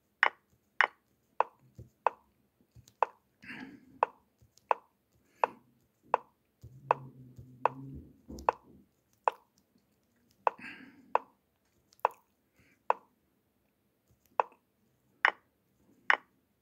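A chess app's move sound, a short wooden click, repeated about twenty times at uneven intervals of half a second to a second. Each click is one move played back as the game is stepped through move by move.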